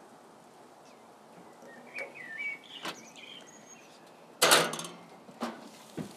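Birds chirping over a quiet background, with a couple of light clicks. About four and a half seconds in comes a loud metal clunk as the gas grill's lid is opened, followed by two smaller knocks.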